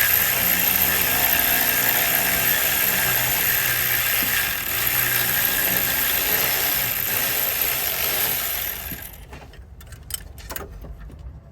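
Power tool running steadily under load as it twists a stuck long alternator mounting bolt out, then stopping about nine seconds in. A few light clicks and knocks follow.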